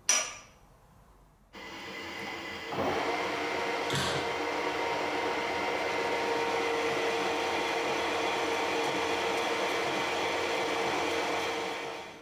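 Harrison 140 metal lathe running with a steady whine as a washer clamped in its chuck is turned down, getting louder about three seconds in and fading out near the end. A short metallic clink comes at the start.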